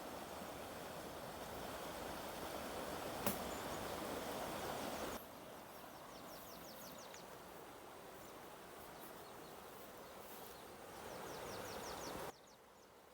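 Outdoor ambience: a steady noise haze with a sharp click about three seconds in, and two short runs of rapid, evenly repeated high chirps from an insect. The background level drops abruptly twice.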